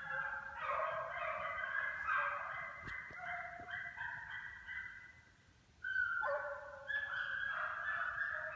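A pack of hunting hounds baying in full cry, many voices overlapping at different pitches. The chorus fades briefly about five seconds in, then comes back loud.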